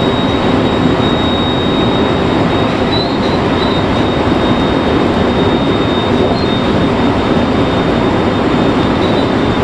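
Rapid Marine Liner electric multiple unit (JR 5000 series with 223 series cars) running steadily along the track: a continuous rumble of wheels on rail and running gear, with a thin steady high whine.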